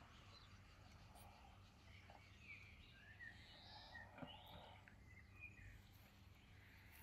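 Near silence: faint outdoor ambience with distant birds chirping briefly now and then.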